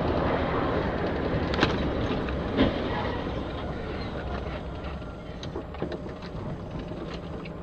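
Steady road noise of a vehicle driving on a wet highway, heard from inside the cab, slowly easing off. There are two sharp knocks, about a second and a half and two and a half seconds in.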